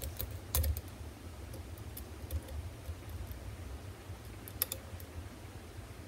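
A few faint, scattered clicks of a short hook lock pick probing the pin stack inside a GreenteQ one-star anti-snap Euro cylinder, the loudest cluster under a second in, over a low steady hum.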